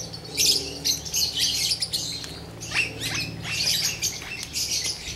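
A flock of caged parakeets chattering and squawking, many short high calls overlapping without a break, over a steady low hum.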